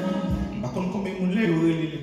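Gospel music with singing, its steady sustained chords dropping away at the start and a man's voice coming in about halfway through.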